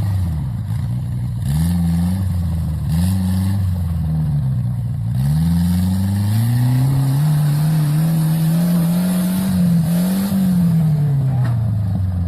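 Homemade off-road buggy's 1600cc turbocharged engine revving up and down several times in quick succession, then climbing and holding at high revs for a few seconds before dropping off near the end.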